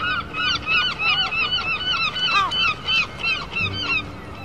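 A flock of gulls calling, many short, sharp cries overlapping several times a second, breaking off near the end.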